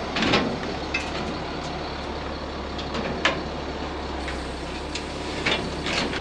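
An engine running steadily under sharp metal knocks and clanks as a heavy steel auger hanging from a hoist chain is guided down into a combine's grain tank. The sharpest clank comes about three seconds in.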